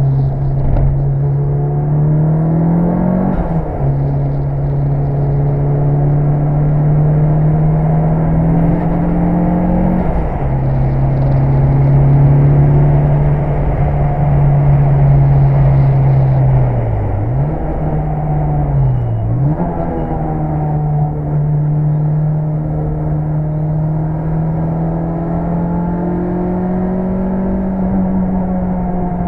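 Tuned Mitsubishi Lancer Evolution VI Tommi Mäkinen Edition's turbocharged four-cylinder engine pulling hard, its revs climbing slowly and dropping sharply at two gear changes early on. Around the middle the revs dip and recover twice in quick succession, then build steadily again.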